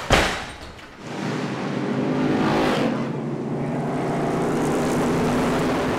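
A sharp bang, then stock cars racing in a pack with their engines running at speed. One car's engine note drops as it passes close, about halfway through.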